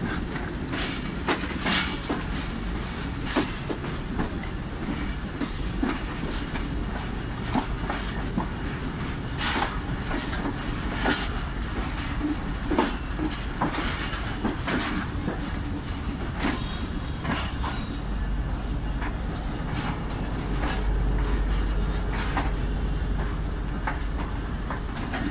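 Passenger train rolling into a station, heard from an open coach doorway: steady running rumble with irregular sharp wheel clacks over rail joints and points, about one a second. A deeper low rumble swells in the last several seconds.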